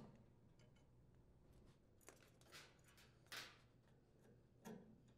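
Near silence with about five faint, short handling noises, soft clicks and rustles, as new spark igniters are pressed into the gas burner orifice holders and their wires are routed.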